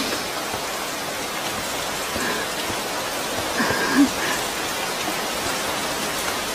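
Heavy rain falling steadily. A few short pitched sounds cut through it about two seconds in and again around four seconds, the later one the loudest.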